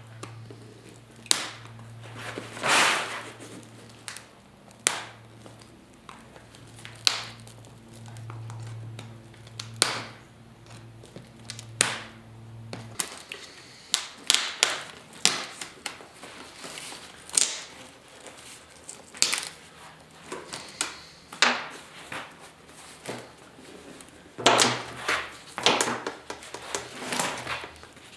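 Hand tools knocking and clicking on a motorcycle seat and its trim clips as it is taken apart: irregular sharp taps, spaced out at first and coming thicker in the second half. A low steady hum underneath stops suddenly about halfway.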